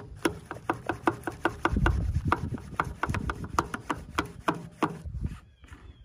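Hand-pump plunger of a plastic pump-up garden sprayer being worked up and down, a quick run of plastic clicks and rubbing at about four a second that stops about five seconds in. The sprayer is not building pressure.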